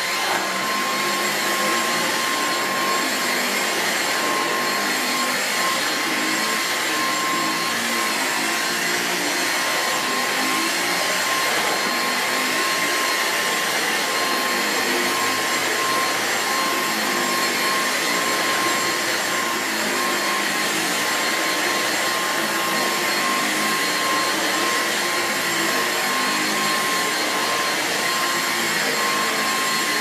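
Dyson V6 Absolute cordless stick vacuum switched on and running steadily, its main powerhead going over carpet: an even rush of air with a steady high whine.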